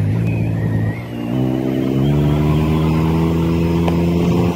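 Bajaj Dominar 400's single-cylinder engine running on the move. The sound dips about a second in, then climbs in pitch as the bike accelerates and holds steady.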